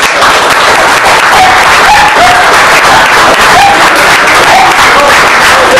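Audience applauding loudly and steadily, a dense clatter of many hands clapping.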